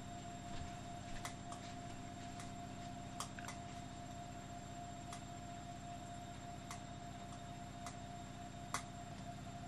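Scattered light clicks and taps, irregularly spaced, from a small brass model steam engine being handled on a workbench, over a faint steady hum.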